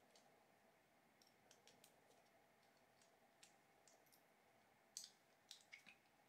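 Quiet, scattered small clicks and ticks of a hex key turning out a screw and of the pancake stepper motor being worked loose from a plastic extruder housing, with a few sharper clicks about five seconds in.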